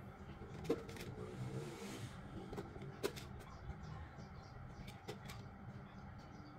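A few sharp light clicks, about two seconds apart, as butter cookies are lifted off a wire cooling rack and set down in a clear plastic jar, with a little rustling, over a faint steady hum.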